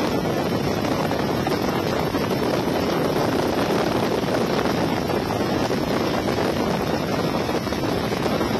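Steady rushing noise of a helicopter in flight, heard from aboard, with wind buffeting the microphone.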